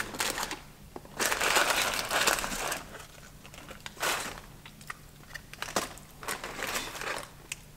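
Paper wrapper crinkling and rustling in three bursts while a fast-food biscuit is unwrapped and broken open by hand.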